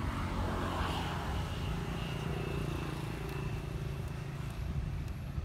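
Steady, distant engine drone over a low rumble.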